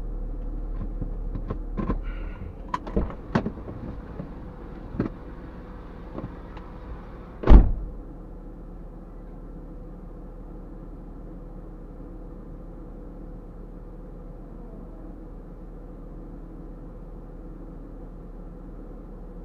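Stationary 4x4 idling, then a series of clicks and knocks and one heavy clunk about seven and a half seconds in, like a vehicle door being shut. After that only a steady low hum.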